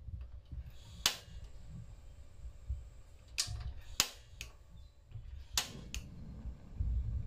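Gas stove burner igniter snapping as the control knob is turned, about five sharp clicks at uneven intervals. These are repeated tries while the LPG works its way through the newly fitted hose to the burner, which catches near the end.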